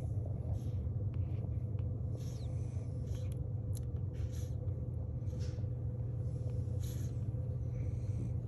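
Week-old French bulldog puppies suckling: faint, soft smacking and rustling sounds scattered about once a second over a steady low hum.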